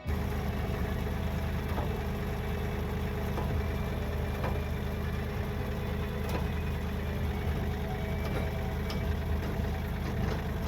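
Sawmill engine idling steadily with light ticking; it starts abruptly at the beginning.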